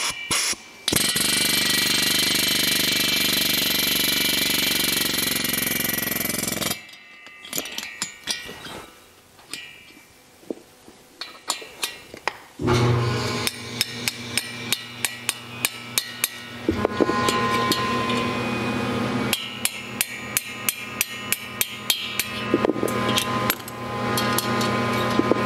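Pneumatic air hammer with a stepped valve-guide punch running in one continuous rapid burst for about seven seconds, driving a worn valve guide out of an aluminium air-cooled Porsche 911 cylinder head. After that come scattered clinks of metal parts being handled. From about halfway in there is a steady hum with evenly spaced ticks about twice a second.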